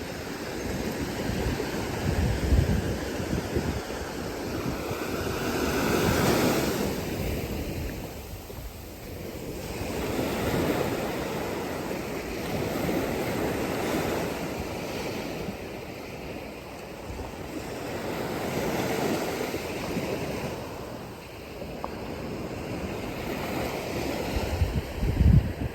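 Sea waves washing in, the rush swelling and fading about every four to five seconds, with wind buffeting the microphone a couple of times.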